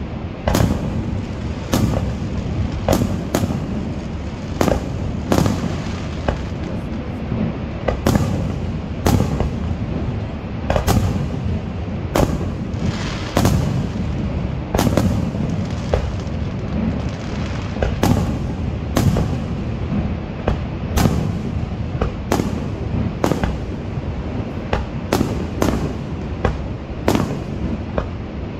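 Aerial fireworks shells bursting in the sky, a sharp bang about once a second at irregular spacing, over a steady low rumble.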